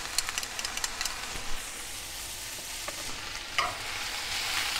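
Onion rings sizzling steadily in clarified butter in a cast-iron pan, with the heat just turned down. Metal tongs turn the onions, giving occasional clicks and scrapes against the pan.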